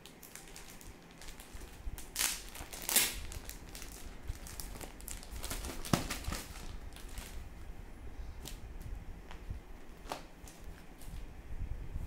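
Clear plastic packaging crinkling as it is handled, in irregular short bursts, loudest about two to three seconds in and again around six seconds.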